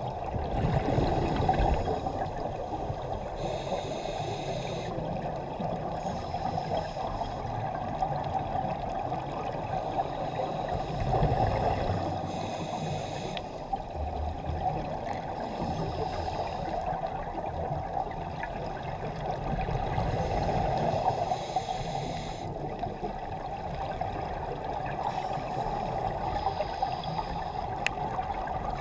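Scuba breathing heard underwater through a camera housing: a short regulator hiss on each inhale every few seconds, with gurgling exhaled bubbles between, over a steady muffled underwater drone.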